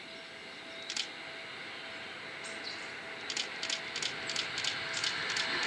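Seibu 9000-series electric train approaching from a distance, its running noise slowly growing louder, with a run of faint, quick high ticks over the second half.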